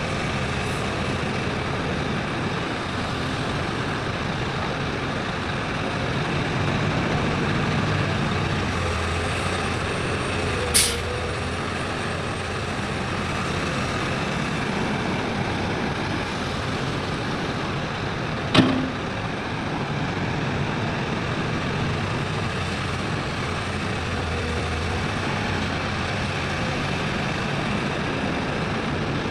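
Heavy diesel engines of mining machinery running steadily. About a third of the way in there is a short sharp hiss, and later a single sharp knock.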